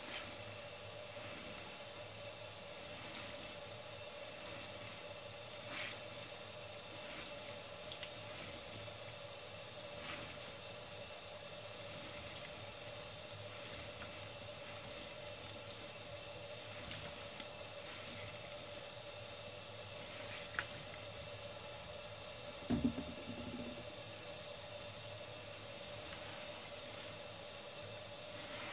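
Tap water running steadily into a foam-filled stainless sink while soapy sponges are squeezed and rinsed under the stream, with a few small squishy clicks. A single soft thump sounds about three-quarters of the way through.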